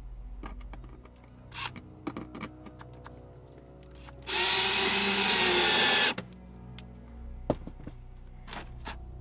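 Ryobi cordless drill running in one burst of about two seconds, about four seconds in, pressed against the plywood wall to fix the end of a bungee cord. Small clicks and taps of handling come before and after it.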